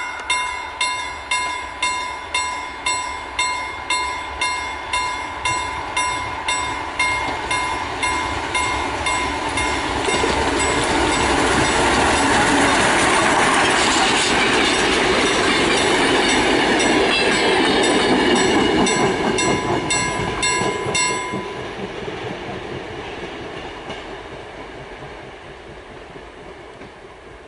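A level-crossing warning bell rings with rapid, even strokes while a steam locomotive and its train approach. The train passes close by, its wheels clattering over the rail joints, loudest in the middle. The bell stops about three-quarters of the way through, and the train sound fades as it moves away.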